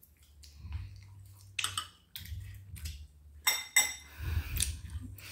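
Spoons clinking and scraping against bowls as people eat, several sharp clinks with a brief ring, the loudest a little past the middle.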